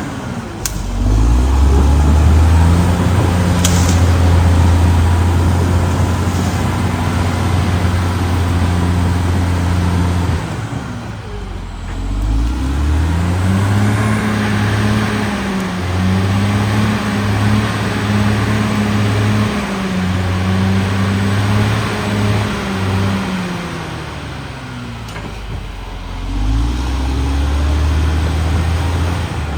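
Caterpillar D6R XL bulldozer's diesel engine working under load, its pitch sinking and climbing again several times: it eases off about ten seconds in and again near the end, then pulls back up.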